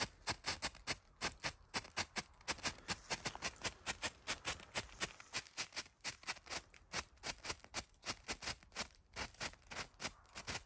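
Strobe pyrotechnic light discs firing their flashes, each flash a sharp pop, making a rapid, irregular crackle of several pops a second.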